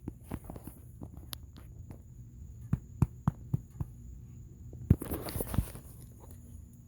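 Grey fox coughing: an irregular series of short, sharp hacks, with the loudest, raspiest bout about five seconds in. The uploader thinks it is probably trying to bring up a fur ball.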